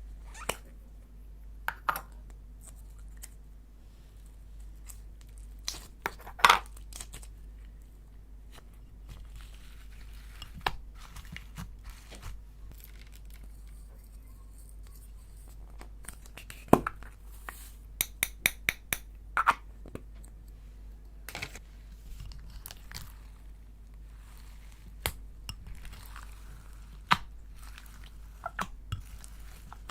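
Slime being worked by hand: scattered sharp crackles and clicks over a faint steady hum, with a quick run of about six clicks just past the middle.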